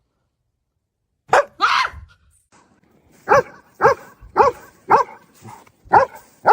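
A dog barking: two barks about a second in, then a steady run of barks roughly two a second.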